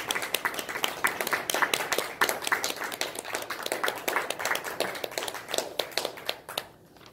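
Applause, many hands clapping together, dying away near the end.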